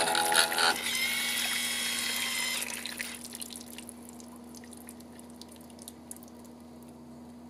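Sparge water sprinkling and dripping from an automatic sparge arm onto the grain bed in a mash tun, over a steady low hum. Some steady higher tones sound for the first few seconds, then stop about three seconds in, leaving the quieter patter of drips.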